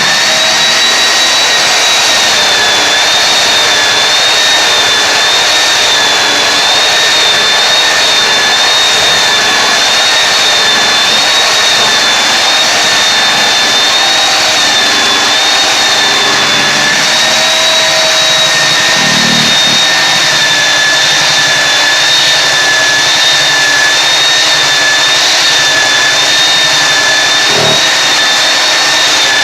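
Electric belt sander running steadily with a high, slightly wavering motor whine as it sands old vinyl floor tile. There is a short knock near the end.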